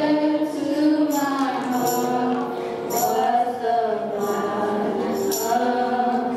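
Several voices singing a slow hymn together in long held notes, with a tambourine jingling on the beat.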